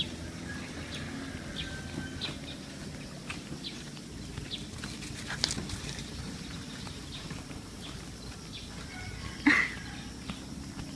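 Quiet rural yard sounds: scattered small knocks and clicks over a low background, with one short, louder animal call about nine and a half seconds in.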